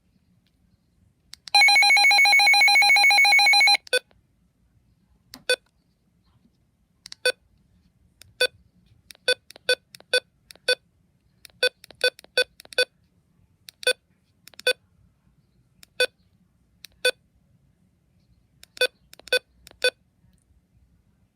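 Midland HH54VP handheld weather radio beeping as its buttons are pressed during programming: short single key beeps at uneven intervals. About a second and a half in, a loud buzzing electronic tone sounds for about two seconds.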